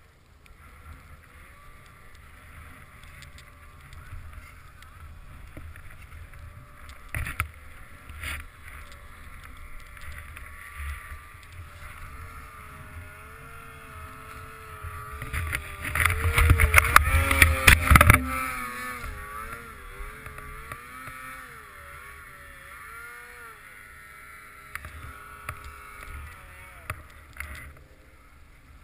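Two-stroke snowmobile engines running, their pitch wavering up and down, with a louder stretch and several sharp knocks a little past the middle.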